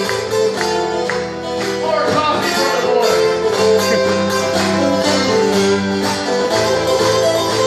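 Two guitars playing a live instrumental break of a country-western song: picked notes over steadily strummed chords.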